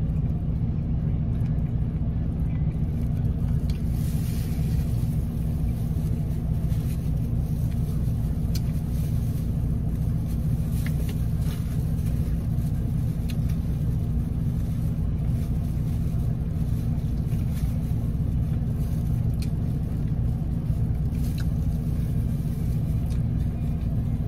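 Steady low rumble of a car's idling engine heard inside the closed cabin, with a few faint clicks of eating now and then.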